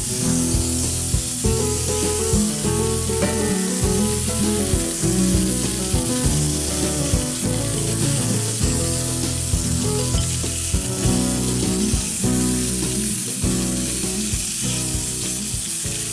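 Sheepshead fillets searing in oil in a smoking-hot cast-iron pan: a steady, loud sizzle. Background music with a bass line plays under it.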